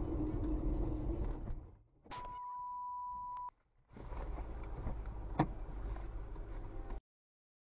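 Car driving, heard from inside the cabin as steady road and engine noise. It breaks for a single steady electronic beep lasting about a second and a half, then the driving noise returns with one sharp click near the end.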